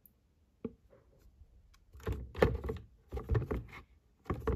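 Plastic water filter pushed down into an espresso machine's plastic water tank: a single click, then three bursts of hard plastic knocking and scraping as it is pressed to seat.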